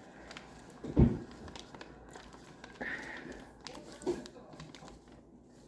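Sheet of paper being folded and creased by hand, with soft rustling and crinkling and a dull thump about a second in.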